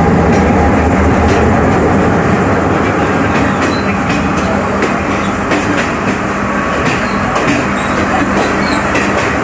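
A passing train close alongside: its diesel locomotive's engine rumble is heaviest in the first second or so, then its passenger carriages rush by with a steady rattle and irregular clacks of wheels on rail joints.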